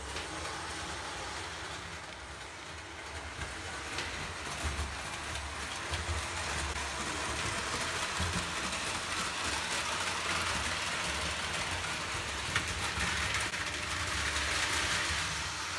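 Prewar Lionel O gauge toy train running on tinplate track: a steady whirring rumble of the electric motor and wheels rolling over the rails, growing louder near the end.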